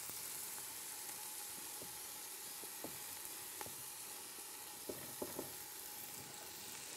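Meat, chickpeas, lentils, celery and tomato paste sizzling steadily in ghee in a pot on the stove, with a few light spoon taps as they are stirred.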